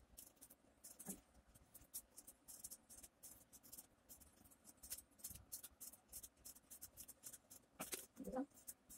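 Scissors snipping short cuts into the edge of a cardboard toilet-paper tube: a run of faint, quick snips at an uneven pace.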